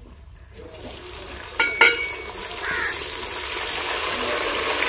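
Chopped tomatoes hitting hot oil and fried onion, ginger and garlic paste in an aluminium pot. Two sharp metal clinks against the pot come about a second and a half in. Then a sizzle builds and holds steady as the tomatoes fry and are stirred.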